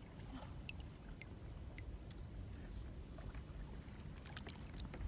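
Faint water lapping and dripping around a drifting kayak, with scattered small ticks, a few more of them near the end, over a low steady rumble.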